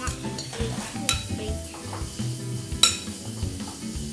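A spoon scraping and clinking against a bowl as wet sliced apple pie filling slides out into the crust, with a sharp clink nearly three seconds in and another about a second in. Background music with sustained low notes runs underneath.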